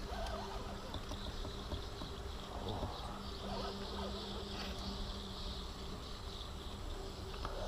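Insects buzzing and chirping steadily, with a faint low hum underneath.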